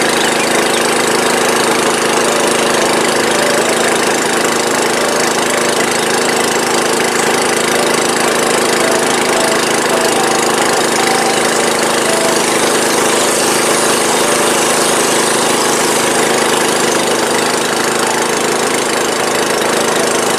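Small boat's engine running steadily at an even speed while under way on a river, with a rushing hiss over the engine note.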